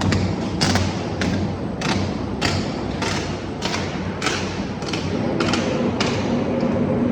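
Steel-reinforcement cage welding machine for concrete pipe running. A regular series of thumps, each with a short hiss, comes about every 0.6 seconds over a steady low hum.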